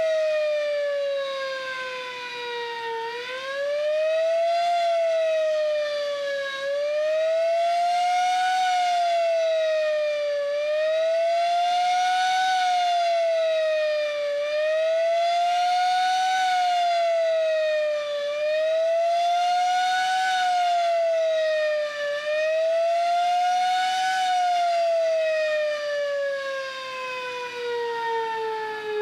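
Sterling Model M dual-rotor electromechanical siren sounding its fast wail, the fire signal. The pitch falls for the first few seconds, then rises and falls about every four seconds, six times. From about 24 seconds in it glides steadily down as the rotor winds down.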